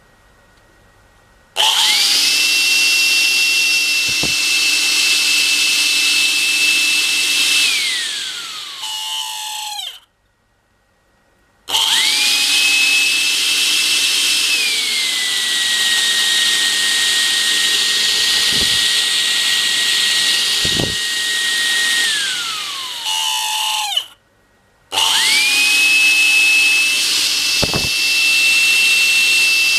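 Makita CL182FD 18V cordless vacuum cleaner's motor fan running with a loud high whine over a hiss. It is switched on about a second and a half in, winds down after about six seconds, restarts, drops to a lower-pitched speed a few seconds later, winds down again, then starts once more; a few faint knocks sound while it runs. The noise is an abnormal sound from the motor, which the owner thinks may be the motor reaching the end of its life after two years of near-daily use.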